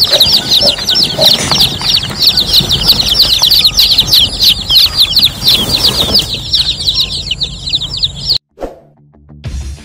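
A large brood of newly hatched chicks peeping together, many short falling peeps overlapping in a constant chorus, with a hen clucking low beneath it near the start. The peeping cuts off abruptly about eight seconds in.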